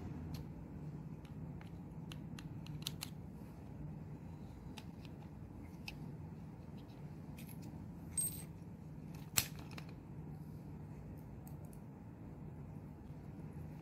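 Small metal clicks and ticks of a magnetic contactor's screws, contacts and plastic housing being handled with a screwdriver. There is a short ringing metallic clink about eight seconds in and a sharp click about a second later, over a steady low hum.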